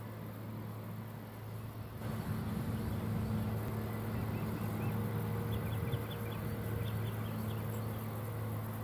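A John Deere tractor's six-cylinder diesel runs steadily under load pulling a field cultivator, getting louder from about two seconds in as the tractor comes closer. A run of short, high bird chirps sounds in the middle.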